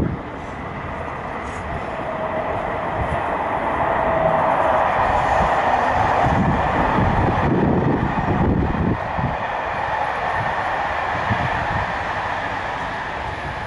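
Long intermodal freight train of semitrailers on wagons rolling past, a steady rumble and rattle of wheels on the rails that grows louder through the middle.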